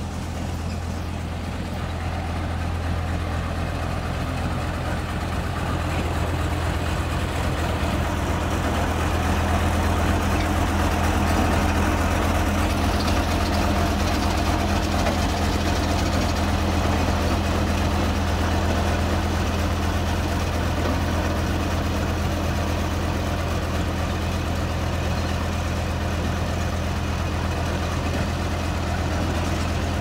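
Single-drum road roller's diesel engine running steadily with a deep drone. It grows louder over the first third as the machine comes close, then holds level.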